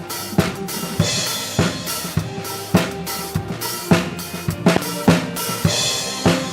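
Live band playing dance music: a drum kit keeps a steady beat of kick and snare about every half-second, under sustained melody and chord notes from the other instruments.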